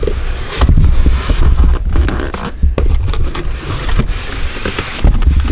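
A cardboard box being handled and turned upside down: cardboard and packing material scraping and rustling, with several knocks and low thuds against the table.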